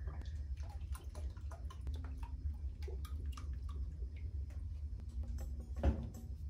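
Water splashing and dripping in a plastic tub of dye bath as gloved hands work the clothes in it, many small irregular splashes over a steady low rumble. There is one louder knock near the end.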